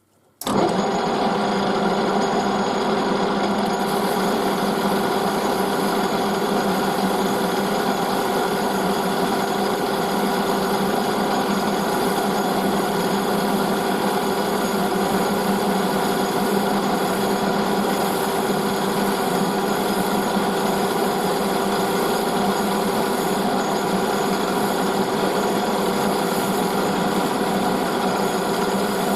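A workshop power tool running steadily at one speed with a constant hum, coming in abruptly just after the start.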